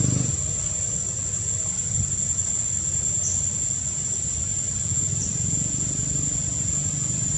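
Forest ambience: a steady, high-pitched insect drone over a low rumble, with two brief high chirps around the middle.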